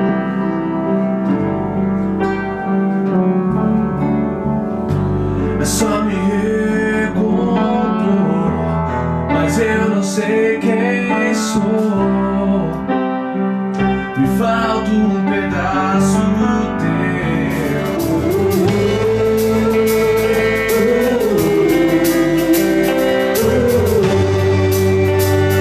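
Music: a song with a voice singing over guitar and piano. About two-thirds through, a steady, rapid ticking beat joins in.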